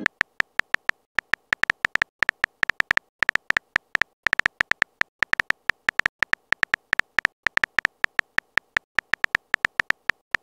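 Simulated phone-keyboard typing clicks from a texting-story app: a rapid run of short, sharp, high ticks, about four to five a second at an uneven pace, one tick per letter typed.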